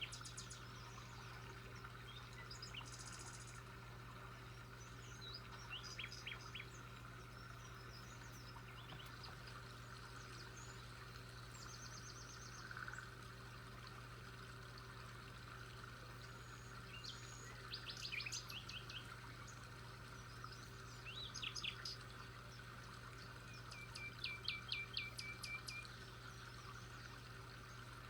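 Songbirds chirping and trilling now and then, with a quick run of chirps near the end, over a faint steady background hum.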